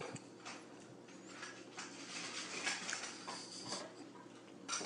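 Faint, scattered clicks and taps from a cat's paws and claws on a granite countertop as it jumps and sidesteps.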